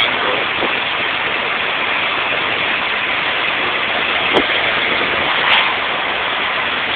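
Twin-turbo Subaru Impreza driving along a road, heard inside the cabin: a steady rush of road and wind noise, with two short knocks about four and five and a half seconds in.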